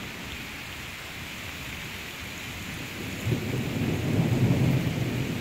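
Heavy rain falling steadily, with a low rumble of thunder coming in about three seconds in and growing louder toward the end.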